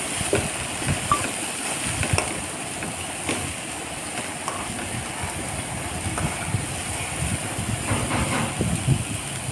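Chopped vegetables sizzling in butter in a pan, a steady hiss with scattered light clicks and scrapes, as from a spoon stirring against the pan.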